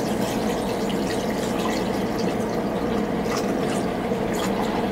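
Water pouring steadily from a plastic measuring cup into a portable fridge's ice-maker water tank, with a few small drips and splashes.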